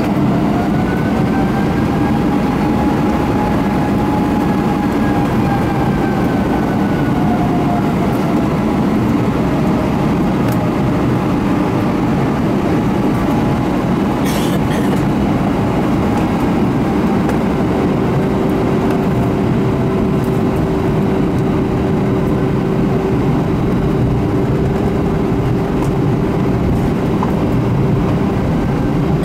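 Airbus A321's jet engines heard from inside the cabin while taxiing: a steady rumble with faint whining tones that rise and then fall gently early on, and a steady hum that joins about halfway through.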